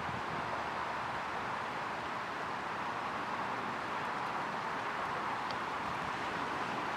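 Steady outdoor background hiss ahead of a thunderstorm, even and unbroken, with one brief faint high chirp about five and a half seconds in.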